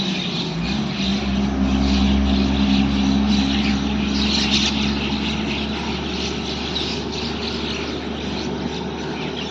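Birds chirping over a steady low engine drone that slowly fades away.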